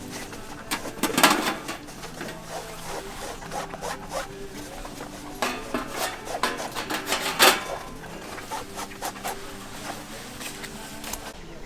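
Irregular clicks, knocks and rubbing, like objects being handled, with the loudest knocks about a second in and at about seven and a half seconds.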